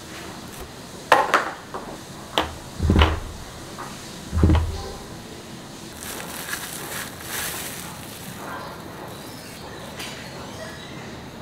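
Unboxing handling noise: a few sharp taps and two dull thumps as the cardboard box is handled on the table, then plastic wrap crinkling about halfway through as the dispenser is unwrapped.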